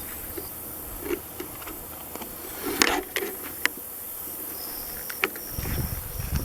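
Insects trilling steadily high up, joined a little after halfway by a second, thin, steady high-pitched trill. A few sharp crackles and snaps, like footsteps on dry leaves and twigs, come through the middle, and there is some low rumble near the end.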